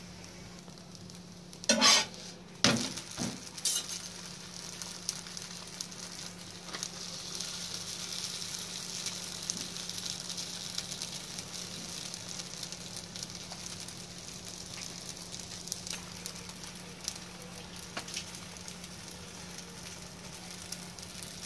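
Msemen dough sheets sizzling on a hot round griddle: a steady frying hiss that grows a little fuller about six seconds in. A few sharp taps against the pan come about two to four seconds in, and a faint low hum runs underneath.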